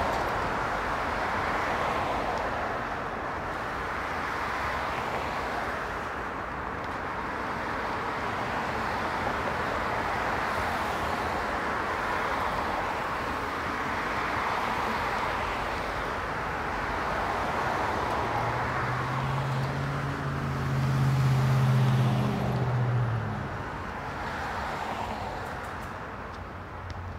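City street traffic: passing cars' tyre and engine noise swells and fades as vehicles go by. About two-thirds of the way through, one passing vehicle's low engine hum rises to be the loudest sound, then fades about two seconds later.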